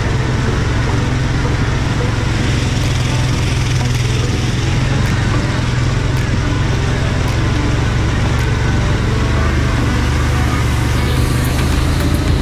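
ATV engine running steadily under way, a low engine drone under a broad rush of noise that holds even throughout.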